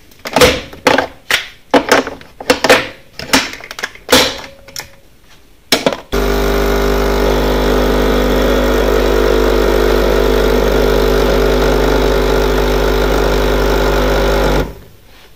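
Nescafé Dolce Gusto capsule machine being loaded, with a series of clicks and knocks. About six seconds in, its pump starts dispensing with a loud, steady hum, then cuts off suddenly near the end.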